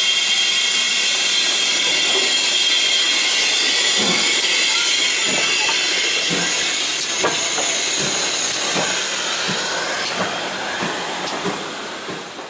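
Steam locomotive GWR No. 6988 Swithland Hall standing and hissing steam steadily, with irregular knocks from about four seconds in. The sound fades out near the end.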